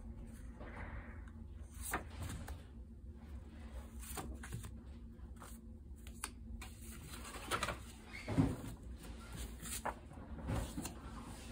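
Loose paper notecards being handled and shuffled on a wooden table, with a white mailer package rustling and a few soft knocks; the loudest handling sound comes about eight seconds in.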